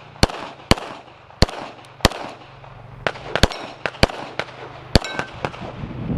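Handgun shots fired on a practical-shooting stage after the start signal: about a dozen sharp reports at an uneven pace, some in quick pairs with short pauses between strings.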